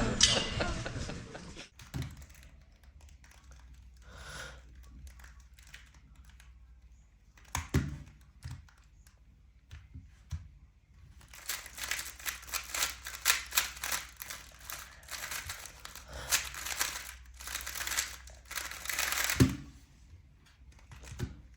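A 3x3 Rubik's cube being turned by hand, its plastic layers clicking: scattered turns at first, then a fast, dense run of turns for about eight seconds in the second half, with a dull knock near the middle and another as the run ends.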